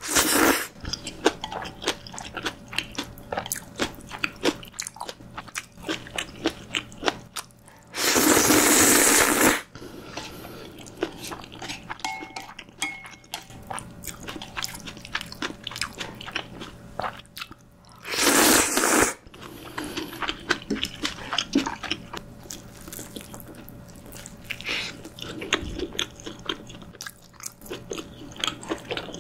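Close-miked eating sounds of Chapagetti black-bean noodles: steady wet chewing and lip smacks, broken twice by a loud slurp of about a second, near eight and eighteen seconds in.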